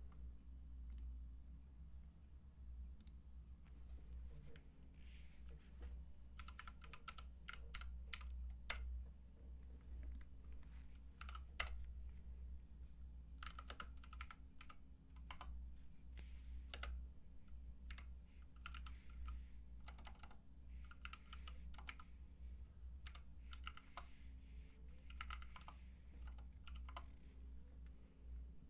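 Computer keyboard typing in short bursts of keystrokes with pauses between, over a low steady hum.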